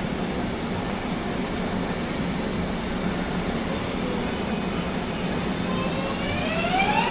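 A MARTA rapid-transit railcar standing at the platform gives a steady hum from its on-board equipment. Near the end a rising whine of several tones comes in, its electric propulsion winding up as the train starts to pull out.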